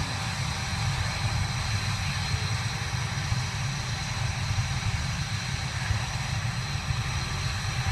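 BAE Hawk T1 jets' turbofan engines running at idle while lined up on the runway: a steady low rumble with a thin, constant high whine over it.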